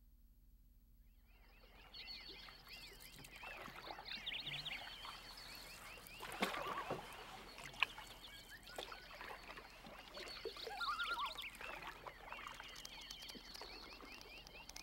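A chorus of many high chirping animal calls, a natural outdoor ambience, fading in about a second in. A couple of sharp knocks stand out near the middle.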